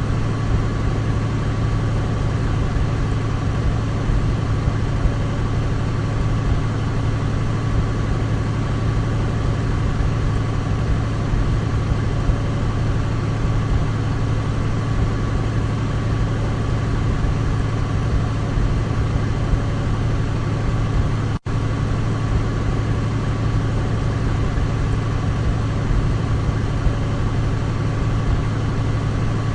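Douglas DC-3's radial piston engines running with a steady, unchanging drone and a deep hum, cut out for an instant about two-thirds of the way through.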